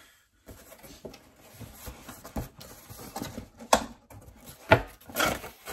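Cardboard shipping box opened by hand: tape pulled loose and flaps scraping and rustling, with irregular crinkles and sharp snaps about three and a half and four and a half seconds in.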